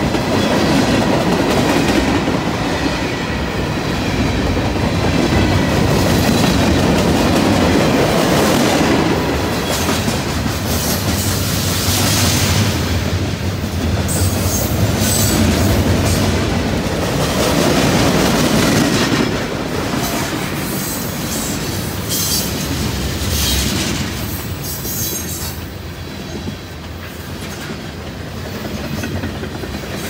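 Long freight train of mixed cars (double-stacked containers, boxcars and tank cars) rolling past close by: a steady rumble and clickety-clack of wheels over the rail joints. It eases a little after about twenty seconds.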